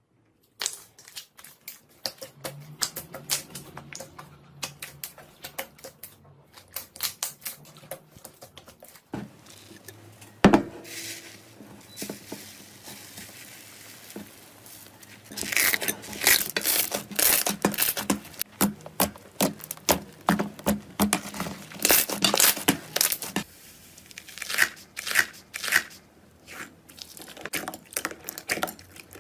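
Slime being handled, giving irregular sticky clicks and crackling pops, with one loud pop about ten seconds in and a dense, louder run of crackling through the middle.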